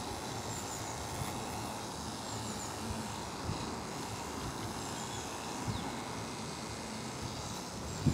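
Andis AGC two-speed electric dog clippers with a 3 3/4 FC blade running steadily while trimming the fur around a dog's muzzle.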